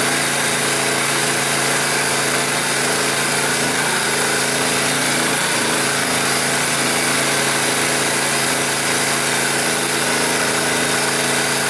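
All-terrain vehicle's engine running at a steady, unchanging pitch while the vehicle drives, heard from inside the cab.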